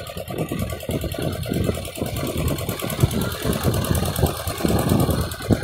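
Fishing boat's engine running steadily, a fast even chugging.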